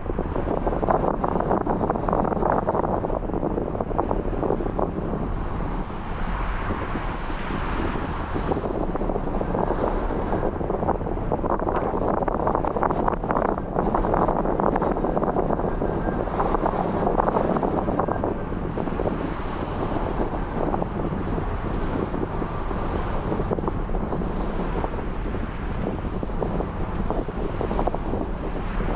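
Strong wind buffeting the microphone in a steady, heavy rumble, with surf on the rocks mixed in underneath.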